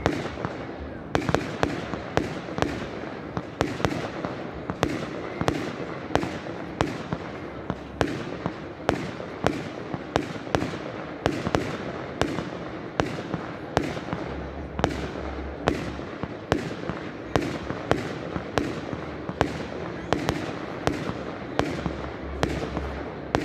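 Aerial firework shells bursting in a steady, rapid series, about two sharp bangs a second.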